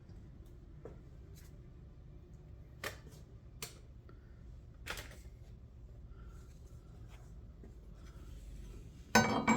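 Handling of a work light and tools under a car on a lift: a few scattered light clicks and knocks over a low steady hum, then a loud clank with a short ring near the end.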